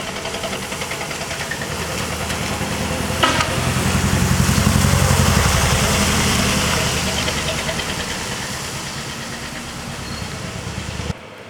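Heavy truck's diesel engine running as it drives past, growing louder to a peak midway and then fading, with a sharp click about three seconds in. The sound cuts off abruptly near the end.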